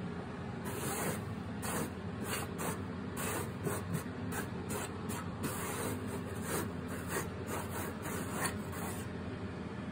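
A hand sweeping and brushing wood chips across a CNC-routed wooden board, a quick irregular run of scraping swishes, over a steady low hum.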